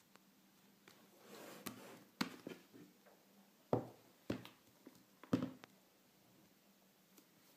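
A sealed cardboard iPad box being handled and turned over on a wooden table: a soft rustle, then about five sharp knocks and taps as the box meets the table and is shifted in the hands.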